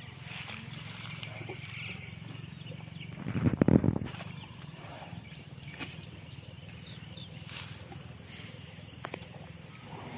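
Bull Asian elephant in musth giving one short, low, loud call about three seconds in, lasting under a second.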